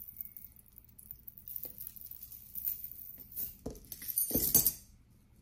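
Metal costume jewelry clinking and jangling as pieces are handled, with small rustles, and a louder rustle and knock about four seconds in.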